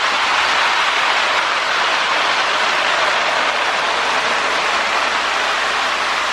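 Electric toy-train whistle, a small motor-driven fan blowing through a whistle chamber, held in one long steady airy blast.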